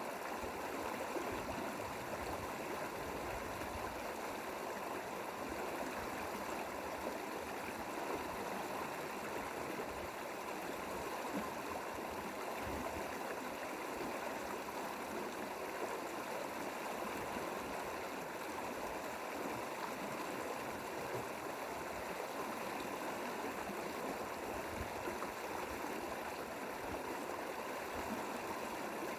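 Mountain stream water running steadily, an even rushing babble with no change.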